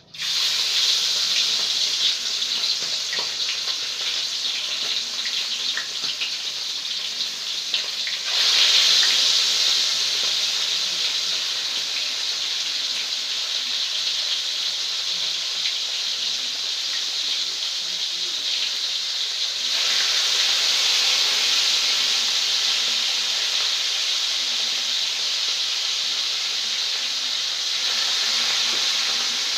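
Steady, loud hiss from a pot of soup broth boiling on the stove. It starts suddenly and grows louder in steps about 8 seconds in and again near 20 seconds.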